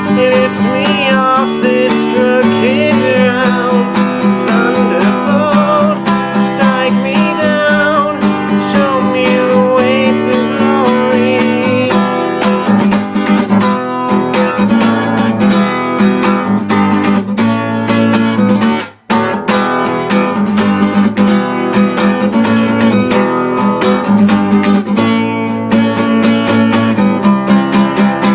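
Instrumental acoustic guitar music: strummed chords with a melodic line over them in the first half, breaking off briefly about two-thirds of the way through before the playing resumes.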